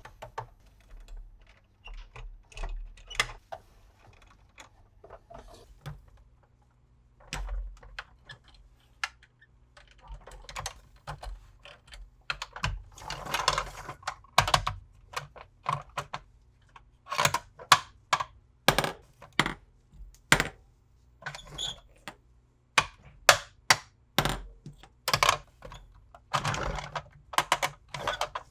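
Hard plastic toy vehicles and their packaging being handled: irregular clicks, taps and knocks of plastic on plastic, some in quick runs, with a few short rustles of packaging.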